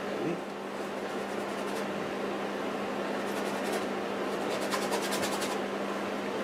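Paintbrush scrubbing paint onto canvas: three short bursts of quick, scratchy strokes over a steady low hum.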